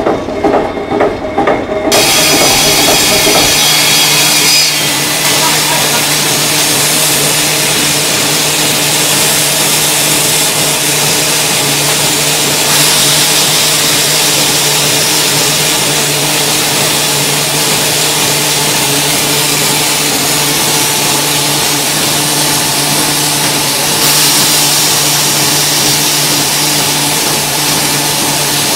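Hollow-core chipboard production machinery running: a rapid pulsing mechanical thrum for the first two seconds, then a sudden change to a steady, loud machine drone with a low hum and a hiss over it.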